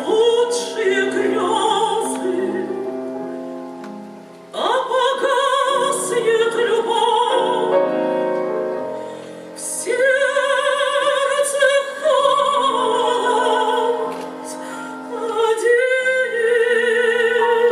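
Female classical singer singing a Russian romance in operatic style with piano accompaniment, long held notes with wide vibrato. New phrases swell in three times, with the sound easing off between them.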